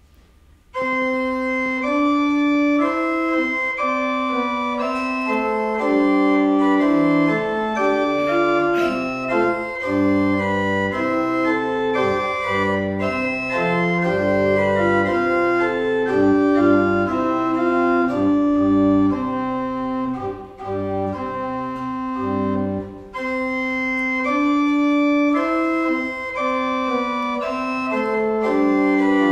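Pipe organ playing music, starting abruptly about a second in: sustained chords over a moving bass line, with a short dip in loudness a little past two-thirds of the way through.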